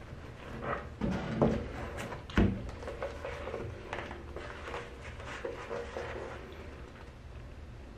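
Indoor household handling noise: a series of knocks and clatters, the two loudest about one and a half and two and a half seconds in.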